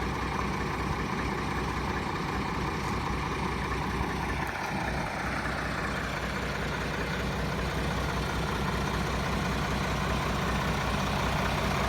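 Heavily loaded truck's diesel engine running steadily under load. Its pitch drops about four seconds in, and it grows slightly louder near the end.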